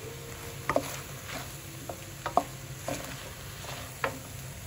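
Wooden spatula stirring rice and noodle stir-fry in a pan over a low frying sizzle, with about half a dozen irregular sharp taps and scrapes as the spatula strikes the pan.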